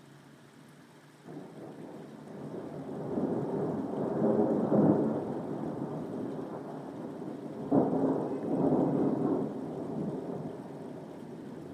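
Thunder over steady rain. The first roll swells from about a second in and peaks around the middle. A second clap starts sharply a little past halfway, rolls on for a couple of seconds and fades.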